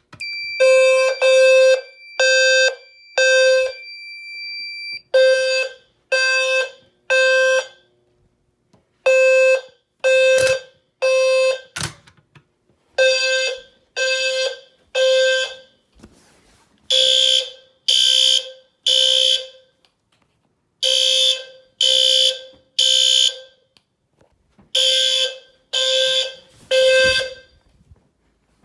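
Fire alarm horns and a System Sensor 520 Hz low-frequency sounder sounding the temporal-3 evacuation pattern after a manual pull station has been pulled: three half-second blasts then a pause, repeating about every four seconds. A steady high tone runs under the first five seconds.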